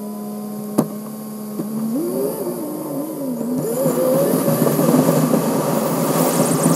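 Car engine idling steadily, then accelerating away, its pitch rising and dropping back several times as it picks up speed, heard from a camera on the front grille with wind and road noise building. A single sharp click just under a second in.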